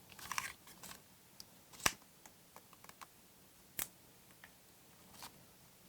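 Plastic clicks of a Samsung Anycall SCH-S140 slide mobile phone being handled: a quick cluster of soft clicks, then scattered small ticks, with two sharp clicks about two seconds apart.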